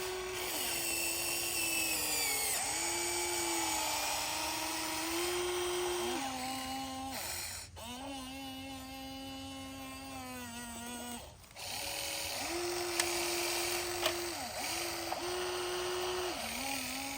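Electric motors of Huina RC construction machines whining, the pitch stepping up and down between a few steady levels, with two short breaks about eight and eleven seconds in.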